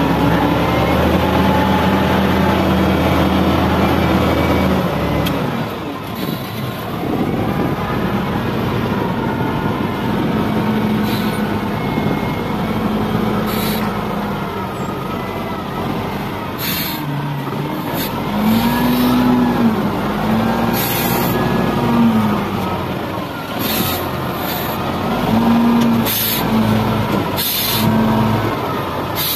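XGMA wheel loader's diesel engine running, steady at first and then revving up and down again and again as the loader drives and lifts its full bucket. Several short hisses cut in over it in the second half.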